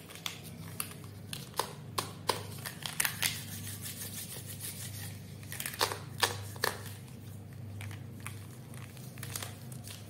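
Plastic felt-tip marker pens clicking and clattering against each other and tapping on paper as they are gathered in a hand and laid down, in irregular small clicks with a quick cluster about six seconds in, over a faint low hum.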